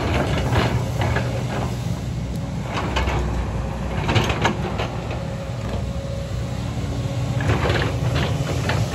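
JCB 225 LC tracked excavator working, its diesel engine running steadily with a faint steady whine over it. Scattered clanks and scrapes of the bucket on rock and soil come about four seconds in and again near the end.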